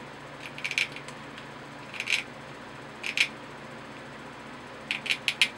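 Aviation tin snips cutting thin sheet metal: short crisp snips in small groups about a second apart, with a quick run of four snips near the end.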